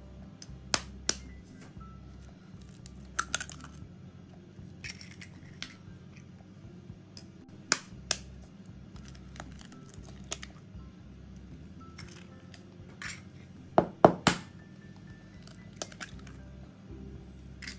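Hen's eggs being cracked against a plastic bowl and pulled open by hand: scattered short taps and shell crackles, the loudest a quick double knock about 14 seconds in.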